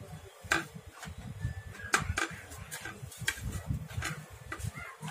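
Hands kneading oiled, steamed rice-flour dough on a steel plate: irregular clicks and knocks of dough and fingers against the metal over a low, uneven rumble of pressing and handling.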